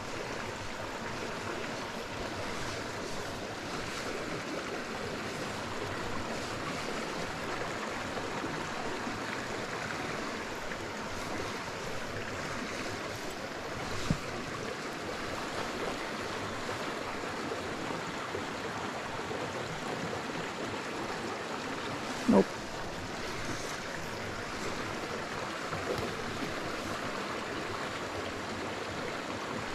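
Small forest creek running over rocks into a pool, a steady rush of water. Two short knocks stand out, about halfway through and again about three quarters in.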